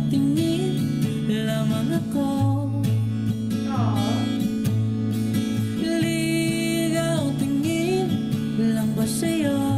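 A young male voice singing a slow Filipino-language ballad over strummed acoustic guitar and a bass line, with long held and gliding sung notes.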